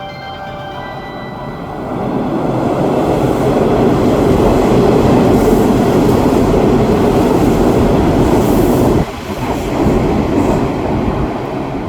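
Electric train passing through a station without stopping, wheels running over the rails. The noise builds over about two seconds and stays loud, then drops sharply about nine seconds in as the train clears, leaving a lower rumble.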